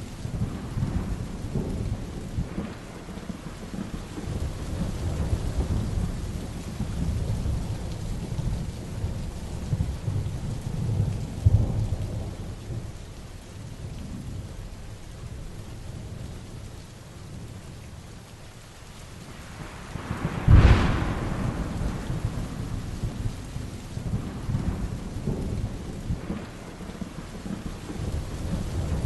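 Heavy rain with thunder rumbling low and continuously. About two-thirds of the way through, a sharp thunderclap cracks out and is the loudest moment.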